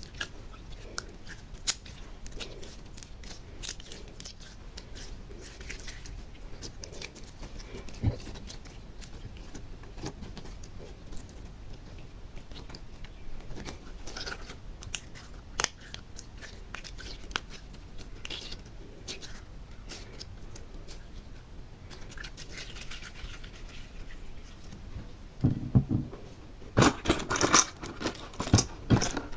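Small plastic decorations clicking and tapping as they are handled and placed on slime, a few scattered ticks at a time. About 25 seconds in it turns into a louder, busier run of sticky clicking and crackling.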